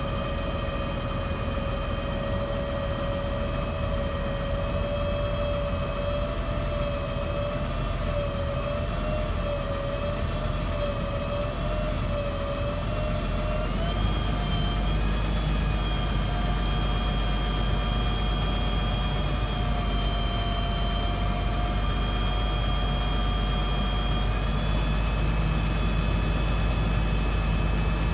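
Cummins ISB diesel of a Ford F750 running with the hook hoist's hydraulic pump whining steadily as the hoist arm moves. About halfway through, the whine steps up in pitch and the engine gets louder.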